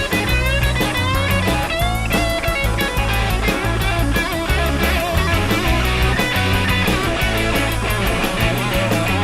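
Rock music with electric guitar lines, bass and drums, instrumental with no singing.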